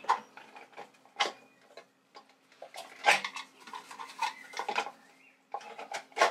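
Irregular light clicks and knocks, about half a dozen sharp ones, as the cover is fitted back onto an air compressor's pressure switch.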